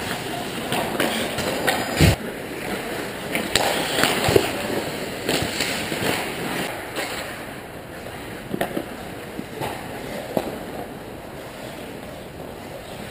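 Ice hockey play close to the goal: skates scraping on the ice, with sharp clacks of sticks and puck striking, the loudest about two seconds in. The sound gets quieter after about eight seconds as the play moves up the ice.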